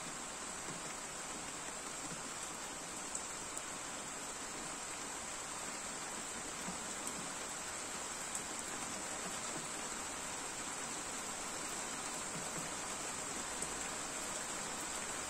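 Steady rain falling, an even hiss with a few faint ticks of single drops scattered through it.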